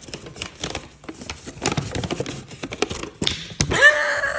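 Packaging rustling and crinkling as a gift box is opened and searched by hand: a quick, irregular run of small crackles and clicks.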